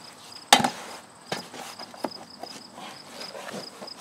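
Shovel chopping into and scraping through a pile of horse manure and chicken bedding, with one sharp strike about half a second in and a few lighter knocks after. A faint insect chirping repeats steadily behind it.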